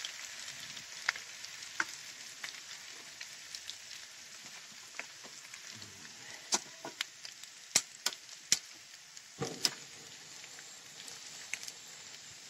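Straw-cut potatoes sizzling as they fry in vegetable oil in a frying pan, a steady hiss with scattered sharp clicks and pops, most of them between about six and ten seconds in.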